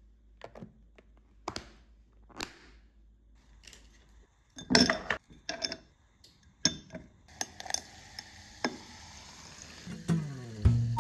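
Dishes and glass food containers being handled: scattered clinks and knocks, with the loudest clatter about five seconds in, then a steady hiss. Background music comes in near the end.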